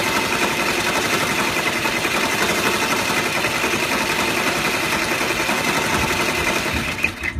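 Multi-needle embroidery machine running at speed and stitching into a terry towel, a steady fast chatter of needle strokes that stops abruptly near the end.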